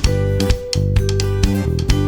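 Background music: a guitar-led instrumental with plucked notes over a steady beat.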